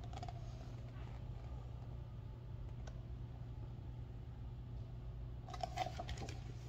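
Quiet room with a steady low hum. There is a faint click about three seconds in, and near the end a short rustle and clicks as a book's paper page is turned.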